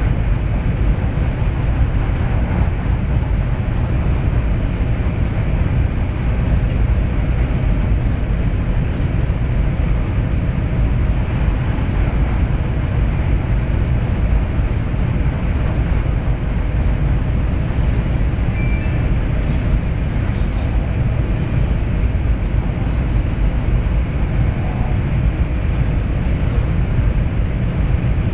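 Cabin noise inside a Taiwan High Speed Rail 700T bullet train cruising at speed: a steady, loud low rumble of wheels on rails and rushing air that holds even throughout.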